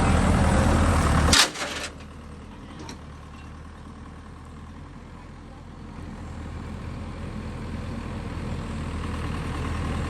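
Mini excavator engine running steadily. About a second and a half in there is a short sharp burst, and the sound drops to a much quieter low rumble that slowly grows louder.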